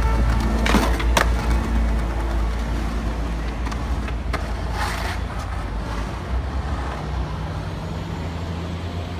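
Skateboard wheels rolling on pavement amid city street traffic, a steady low rumble. A few sharp clacks of the board come about a second in and again around four seconds in.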